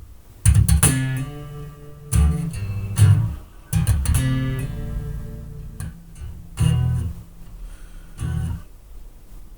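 Freshly re-strung electric bass guitar played through a bass amp cabinet with a full, fat tone: about six loud picked notes or chords, each left to ring and fade.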